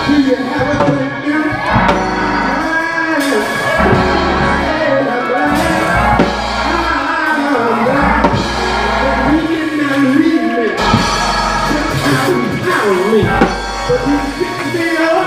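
Live gospel church band playing: keyboard and drum kit with cymbals over held bass notes that change every second or two, with voices singing along.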